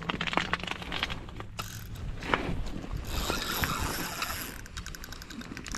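Spinning fishing reel being handled, its gears and pawl clicking and ratcheting in quick small ticks.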